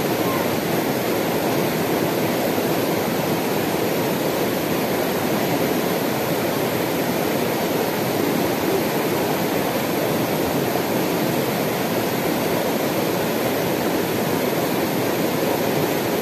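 Shallow mountain river flowing over rocks and small rapids, a steady, unbroken rush of water.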